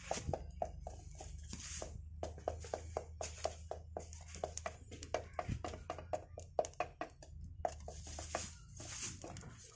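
Straw fire crackling in a clay stove under a pan of molten plastic: many small irregular pops, several a second, over a low steady rumble with bursts of high hiss.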